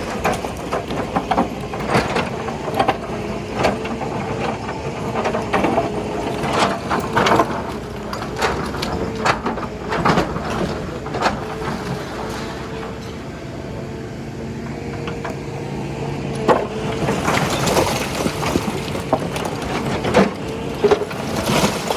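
Hitachi excavator demolishing a house: its engine runs with a steady drone while the arm pulls the structure down, bringing repeated sharp cracks and knocks of breaking building material. The cracking eases off about halfway through, then picks up again.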